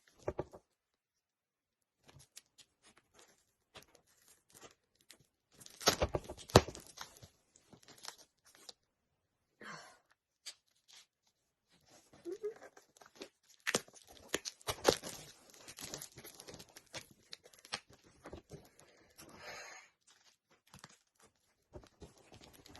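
Parcel packaging being torn open and crinkled by hand, in irregular rustling bursts with pauses. The loudest tearing comes about six seconds in, and another long stretch follows around thirteen to sixteen seconds in.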